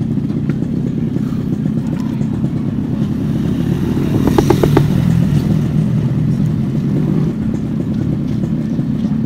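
Steady low motor-vehicle engine rumble, with one vehicle louder and passing close about four to five seconds in.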